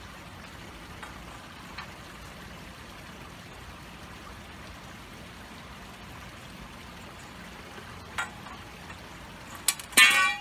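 Hand tubing cutter worked around steel EMT conduit with a few light clicks, then a loud ringing metal clank near the end as the steel tube knocks on the concrete. A steady soft trickle of water runs underneath.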